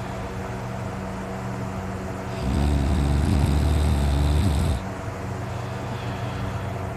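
A sleeping man snoring loudly: one long snore starting about two and a half seconds in and lasting a little over two seconds, over a steady low hum.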